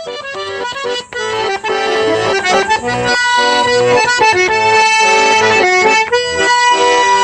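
A small accordion played by hand: a tune of sustained chords over an evenly pulsing bass, swelling louder in the first second.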